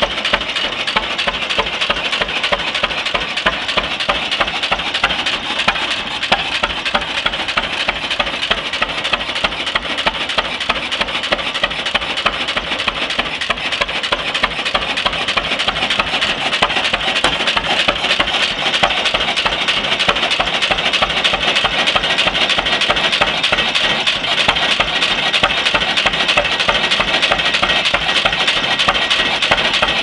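6 hp Fairbanks Morse throttle-governed gas engine on a half-scale Otto friction-drive tractor running steadily while belted to a circular sawmill, with a quick, even beat of metallic clattering strokes.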